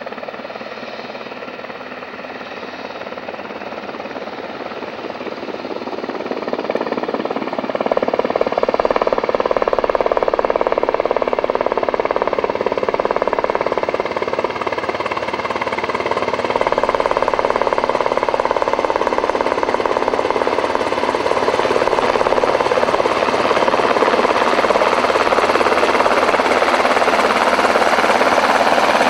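Helicopter flying in to land, its rotor and engine noise growing louder over the first eight seconds or so, then loud and steady.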